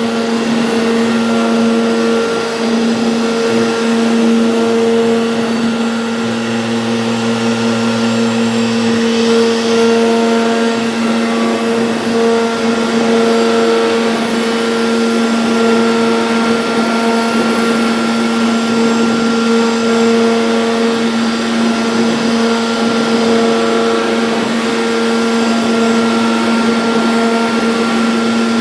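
CNC router spindle running steadily with a constant whine and hum while carving.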